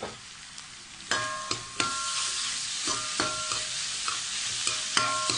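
Chicken fried rice sizzling in a hot metal pan while a steel spoon stirs and scrapes it. The sizzle gets louder about a second in, and the spoon clinks against the pan several times, each strike ringing briefly.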